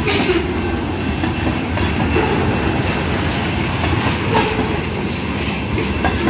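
CSX freight train's tank cars and hopper cars rolling slowly past, a steady low rumble with the wheels clicking over the rail joints.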